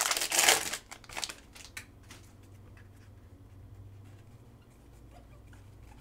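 Foil wrapper of a Panini Mosaic football card pack crinkling as it is torn open, loudest for about the first second, then a few light clicks and rustles as the cards are slid out.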